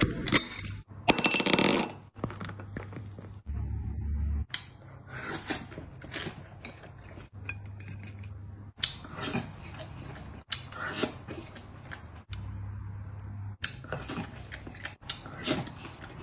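A beer bottle cap pried off with a bottle opener with a sharp click, followed by about a second of fizzing hiss. After that come scattered small clicks of chopsticks against oyster shells and a plate, with eating sounds, as grilled oysters are picked out and eaten.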